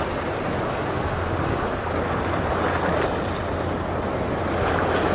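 Steady wind rushing over the microphone, with choppy sea water washing against the boat.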